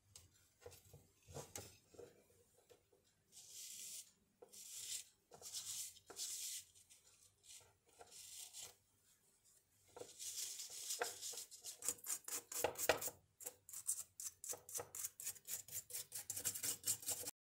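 A cloth rubbing and wiping over an answering machine's circuit board and parts, in separate scrubbing strokes at first and then quick back-and-forth strokes, several a second, from about ten seconds in.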